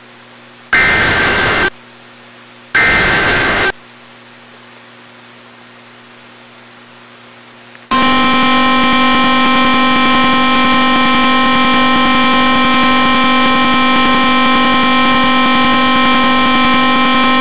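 Emergency Alert System header for a severe thunderstorm warning: two harsh one-second bursts of digital data tones, a second apart, then only a low hum. About eight seconds in, a loud, steady attention tone with many overtones begins.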